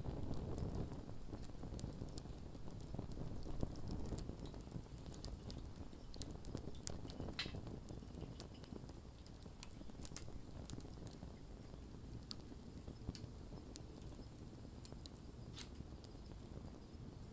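Wood fire crackling, with irregular small pops and snaps over a low steady rumble of flames, a few pops louder than the rest.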